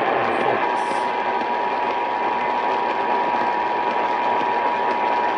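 Emergency Alert System attention signal: a steady, unbroken alert tone that comes on just under a second in, over a continuous hiss. It is the tone that precedes a broadcast EAS voice warning, here a flash flood warning.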